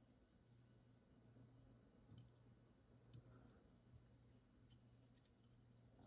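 Near silence with a few faint, scattered clicks of small metal folding-knife parts being handled during reassembly.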